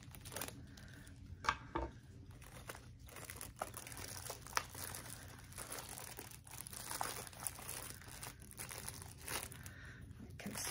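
Plastic shipping wrap on a potted houseplant crinkling and tearing as it is cut and pulled off, with scattered sharp clicks and snaps among the rustling.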